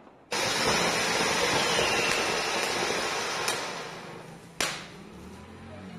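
Ground fountain firework (anar) spraying sparks: a loud steady hiss with scattered crackles starts suddenly and fades after about four seconds. A single sharp firecracker bang comes near the end.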